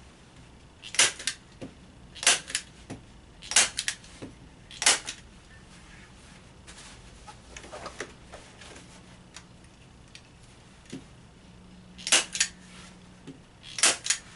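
Hand-held staple gun firing staples through canvas into wooden stretcher bars: four sharp snaps a little over a second apart, then soft rustling of canvas being pulled taut, then two more snaps near the end.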